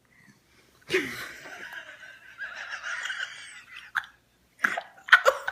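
Non-speech vocal sounds: one long breathy, spluttering sound of about three seconds beginning about a second in, then a click and a few short vocal bursts near the end.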